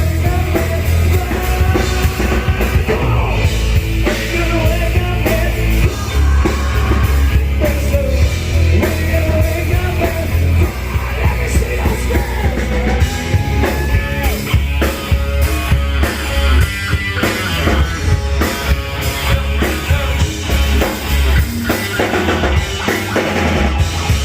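Rock band playing live: distorted electric guitars, bass guitar and drum kit under a sung lead vocal, loud throughout.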